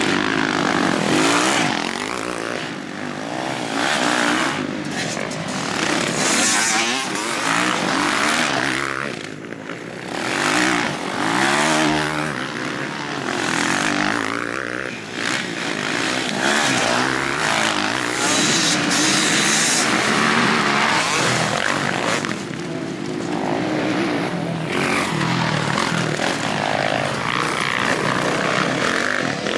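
Motocross bike engines revving hard as riders pass one after another through a dirt-track corner. The sound swells and fades with each pass, its pitch rising and dropping as the throttle is opened and the riders shift.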